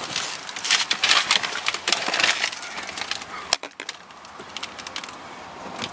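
Crackling and rustling handling noise as a person climbs into a car's driver's seat with the camera, then one sharp click about three and a half seconds in, after which the background goes quieter and steady.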